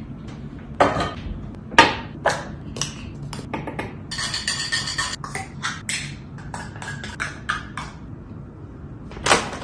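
Dishes and utensils clattering as pet food is dished up: a string of sharp clinks and knocks, a short rattling stretch about four seconds in, and one louder knock near the end.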